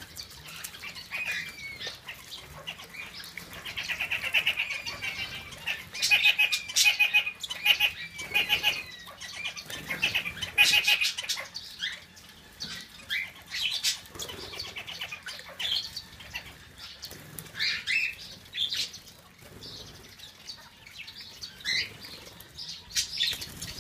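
Small aviary birds bathing in a shallow water dish: wings flapping and splashing in the water, mixed with short chirps and squawks. The flurry is busiest in the first half, then comes in sparser bursts.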